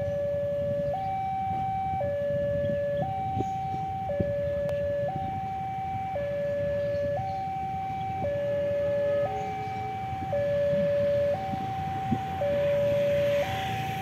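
Railway level-crossing warning alarm sounding a two-tone electronic signal, a higher and a lower tone alternating about once a second: the warning that a train is approaching. A steady low rumble lies underneath.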